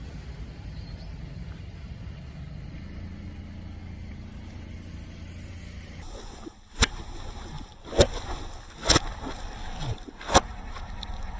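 Car tyre rolling over and crushing objects: a steady low rumble, then about six seconds in four sharp cracks roughly a second apart as things break under the tyre.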